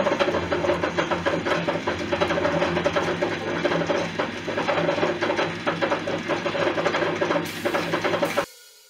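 Metal lathe running with its cutting tool turning a taper on a solid brass billet, throwing off chips: a steady machine hum with dense, rapid clatter. The sound cuts off suddenly near the end.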